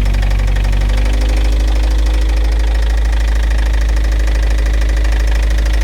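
Toyota MR2 engine idling steadily with a rapid, even knock, which the owner puts down to a worn bearing (rod knock).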